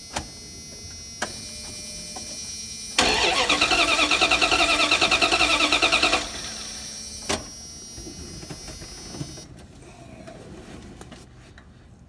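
1997 Dodge Ram B2500's 5.2 L V8 cranked over by its starter for about three seconds, in an even pulsing rhythm, starting about three seconds in. The ignition is disconnected, so it turns over without firing while a compression gauge on cylinder 6 is pumped up.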